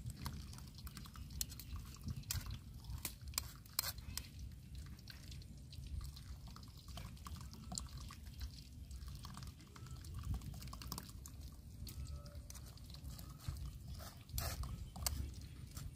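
A metal ladle scrapes and taps against a small wire-mesh strainer of fermented rice (cơm mẻ) held in a wok of water, pressing the mẻ through, in irregular clicks and scrapes over a steady low rumble.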